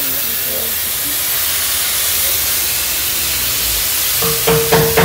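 Compressed air hissing steadily from a tyre-shop air hose into the valve of a Tarmak size 7 rubber basketball as it is inflated. About four seconds in, a steady machine hum starts along with a few rapid, regular knocks.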